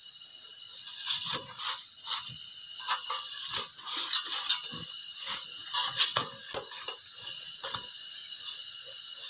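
Slotted metal spatula scraping and tapping on a flat griddle (tawa) as a roti is pressed and turned while it roasts, in irregular clicks and scrapes over a steady hiss.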